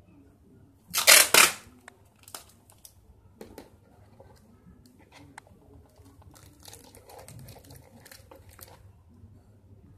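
Adhesive tape pulled off the roll with a loud rip about a second in. Then paper and a plastic bowl are handled with light crinkles, taps and clicks.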